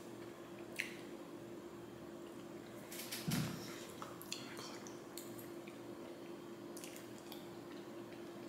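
Close-miked wet mouth sounds of someone eating a dense chocolate mousse cake: soft squishy smacks and clicks scattered through. About three seconds in, a fork knocks and scrapes in the plastic takeout container, with a low thump. A steady low hum runs underneath.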